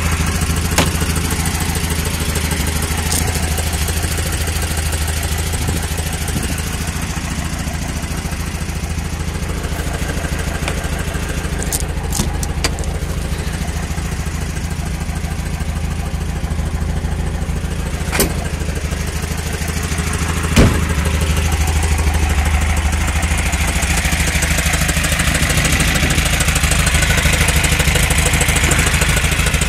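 1962 VW Type 34 Karmann Ghia's engine idling steadily, a little louder from about twenty seconds in. A few sharp clicks and knocks sound over it, the loudest about twenty seconds in.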